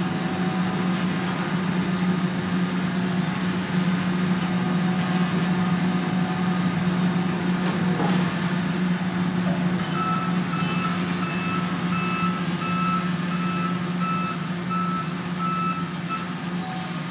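Diesel engine of a Volvo EC480E high-reach demolition excavator running steadily. About ten seconds in a back-up alarm starts beeping about twice a second, stopping shortly before the end.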